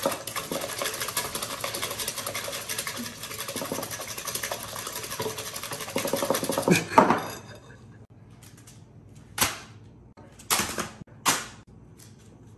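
Wire whisk beating rapidly against a glass mixing bowl through a thick mayonnaise and sour cream mixture, a fast run of clinks and scrapes that stops about seven seconds in. After a short pause come a few brief rustles from a paper bag being handled.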